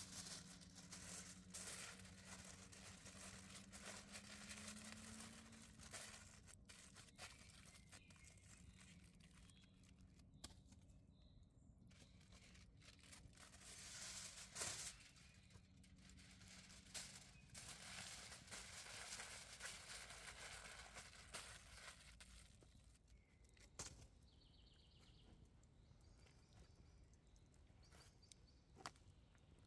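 Very quiet outdoor ambience with faint handling sounds: a paper or plastic wrapper rustling and crinkling, and a few short clicks and taps.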